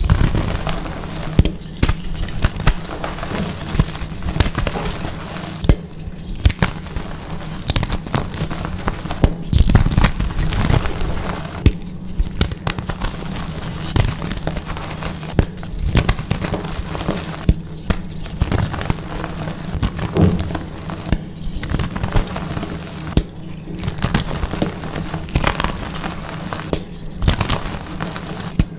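Dyed gym chalk blocks being crushed, crunching and crackling densely, with short breaks every few seconds between squeezes.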